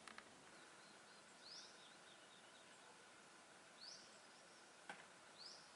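Near silence with three short, high bird chirps, each a quick upward sweep, about two seconds apart, and two faint clicks.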